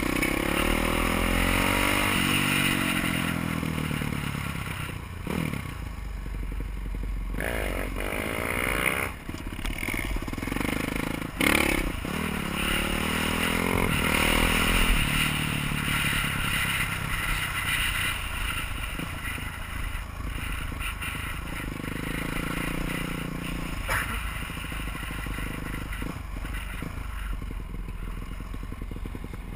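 Supermoto motorcycle engine heard from the rider's helmet, its revs rising and falling repeatedly as it is ridden and shifted, over a steady low rumble.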